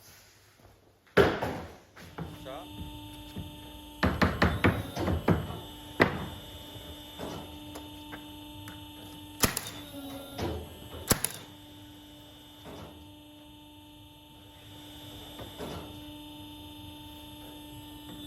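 A steady mechanical hum with a series of sharp knocks and clunks, a quick cluster of them about four seconds in.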